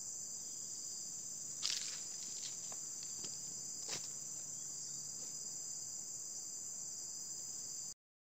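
Steady, high-pitched chorus of insects, broken by a few short knocks, the loudest just before two seconds in and another about four seconds in. The sound stops abruptly just before the end.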